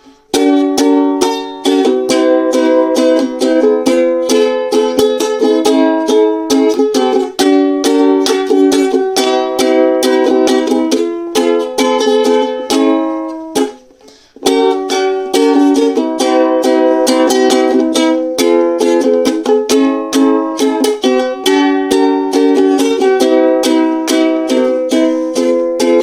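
Background music of briskly plucked ukulele-like strings, with a short break about halfway through.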